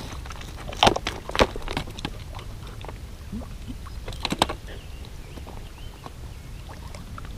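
Footsteps on loose shoreline rock: a few sharp clacks of stone about a second in and again around four and a half seconds. A steady low rumble of wind on the microphone runs underneath.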